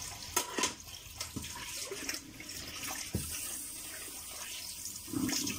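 Kitchen tap running into a sink while a mixing bowl is washed, with a few short knocks of the bowl among the running water.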